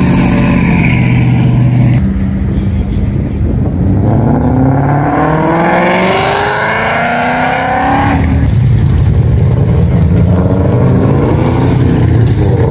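Cars pulling away one after another with engines under throttle. One car accelerates hard, its engine note rising steadily for about four seconds, then dropping sharply at a gear change about eight seconds in. Another engine pulls away after it.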